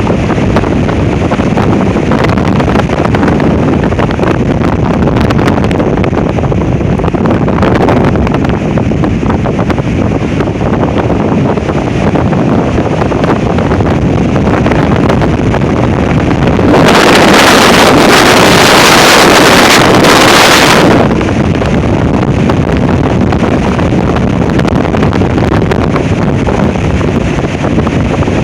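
Strong wind buffeting the microphone in a windstorm, a continuous heavy rush. A stronger gust hits about two-thirds of the way through and lasts about four seconds before dropping back.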